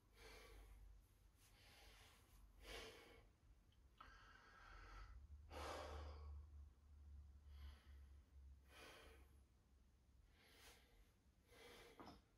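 Faint heavy breathing of a winded man, with deep breaths coming about every second or so. It is the breathlessness of heavy deadlifting on poor cardio.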